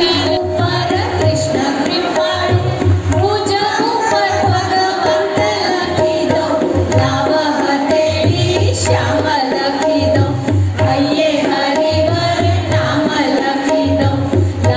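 Devotional bhajan: a woman singing through a microphone, accompanied by tabla playing a steady repeating rhythm.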